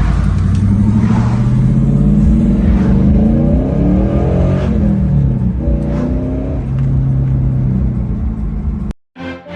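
A 2002 Pontiac Trans Am WS6's 5.7-litre LS1 V8 pulling under acceleration, its pitch rising and then dropping at a gear change about four to five seconds in, then running steadily. It cuts off suddenly near the end.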